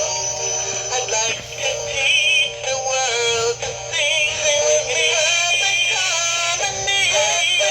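Gemmy animatronic singing cardinal couple toy playing a song through its small built-in speaker: synthetic-sounding sung vocals over a music backing, thin, with little bass.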